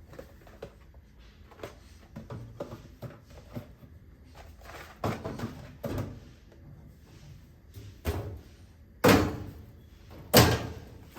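Household knocks and thuds: scattered light knocks, then a few sharper bangs, the two loudest in the last couple of seconds.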